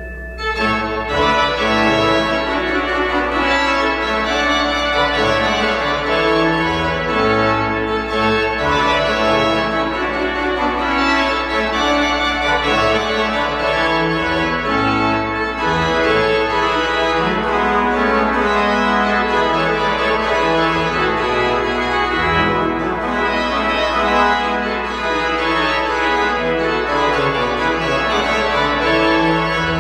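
Church organ playing sustained full chords over a steady low bass note, the harmony changing every second or two.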